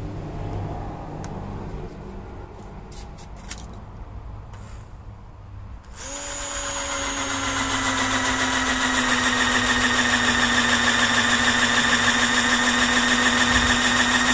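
Corded electric drill starting up about six seconds in and running at a steady whine as it bores a drain hole through a car tyre's rubber sidewall. Before it starts there is only a low background rumble with a few faint clicks.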